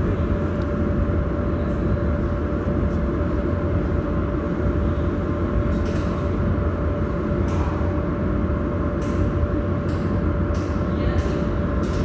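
Steady hum of a mold laser welding machine running, with a constant mid-pitched tone over a low rumble. A few sharp clicks come in the second half.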